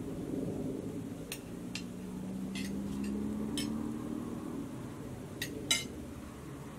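A handful of light clinks of cutlery against plates and a metal pot during a meal, the loudest near the end, over a low steady background rumble with a faint hum in the middle.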